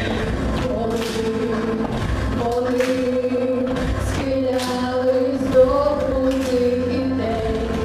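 A group of girls singing a song together into microphones, holding long notes.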